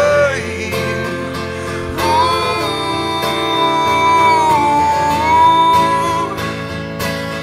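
Live acoustic band music: acoustic guitar with a long wordless sung note held from about two seconds in until near the end.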